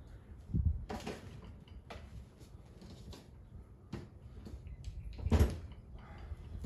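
Scattered clicks and knocks of hands working with tools and parts, with a low thump about half a second in and a louder thump about five and a half seconds in.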